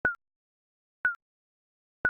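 Digital countdown timer beeps, one short high beep a second with a slight downward dip in pitch, twice here.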